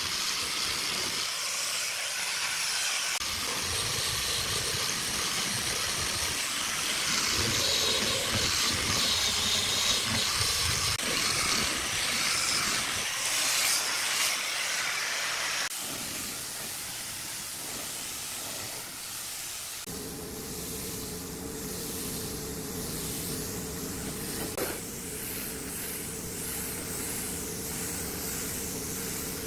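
Angle grinder with a sanding disc sanding a wooden tabletop, a steady harsh hiss. A little past halfway the sound cuts to a quieter steady hiss, and later a low, even hum comes in under it, typical of a spray gun applying finish.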